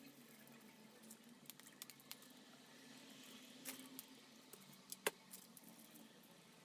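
Faint, scattered light clicks and taps of small objects being handled, the sharpest about a second apart near the middle, over a low steady hum.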